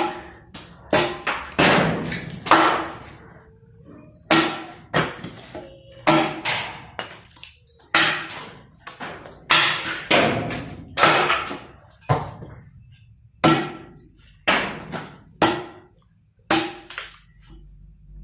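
Repeated heavy blows of a splitting maul striking wood, one or two a second with a few short pauses, each a sharp crack with a brief ringing decay.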